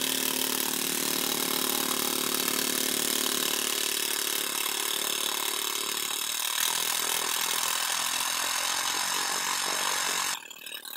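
A motor-driven power tool running steadily, with a steady hum and whine; its lower tone drops away about two-thirds of the way through, and it cuts off abruptly near the end.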